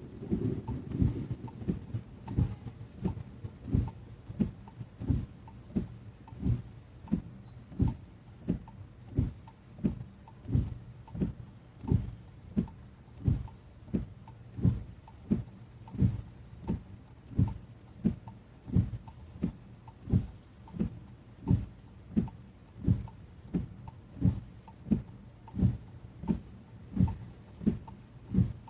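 Car windscreen wipers sweeping steadily in heavy rain, heard from inside the car: a soft, even thump at each stroke, about every 0.7 seconds, alternating stronger and weaker. The tail of a thunder roll fades out at the start.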